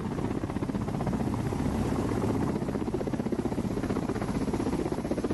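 Ka-52 attack helicopter flying low and close, its coaxial twin rotors beating in a fast, even pulse over the steady turbine noise.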